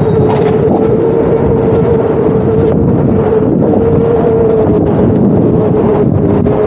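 Suspension electric unicycle's hub motor whining in one steady tone that wavers slightly in pitch while cruising, with wind rushing over the microphone.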